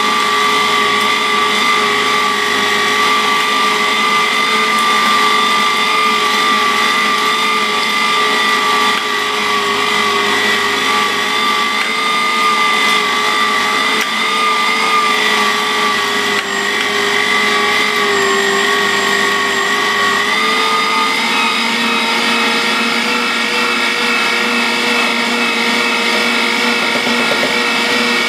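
Electric meat grinder's motor running with a steady whine while pushing cubed pork through the coarse grinding plate. About twenty seconds in its pitch steps up and holds there.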